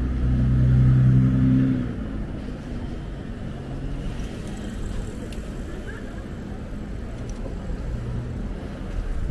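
A motor vehicle's engine passing close by, loudest in the first two seconds, then fading into a steady city-street hum.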